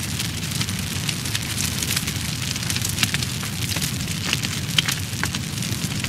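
Fire burning: a steady low rumble under frequent sharp crackles and pops, a couple of them louder than the rest.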